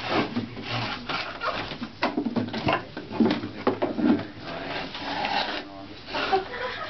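A clog maker's long hinged block knife cutting a wooden clog blank to shape: a quick, irregular run of short, crisp cuts and scrapes through the wood, several a second.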